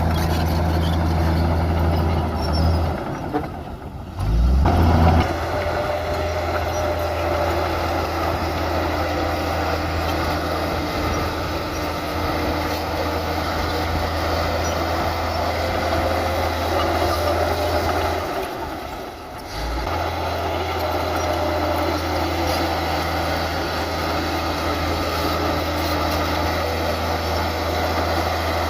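Heavy diesel engines of earthmoving machines (bulldozer and dump trucks) running steadily under load, with a low engine hum throughout. The sound drops and changes abruptly twice, about four seconds in and again about nineteen seconds in.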